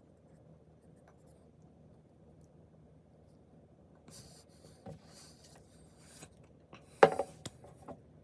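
Faint low hum, then scratchy rubbing noises in short patches, with one sharp knock about seven seconds in and a few lighter clicks after it.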